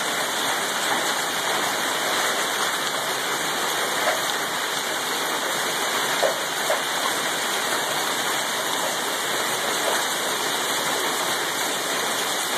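Heavy hailstorm: large hailstones falling and pelting the ground and surfaces in a dense, steady clatter.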